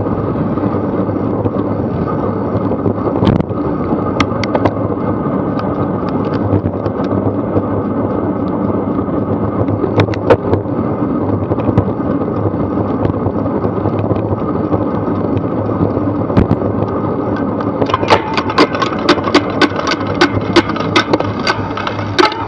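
Bicycle riding on a city road, heard through an action camera mounted on the bike: steady tyre and road rumble with camera rattle, and a few sharp knocks from bumps. About eighteen seconds in, a regular ticking starts, about three a second, and runs to the end.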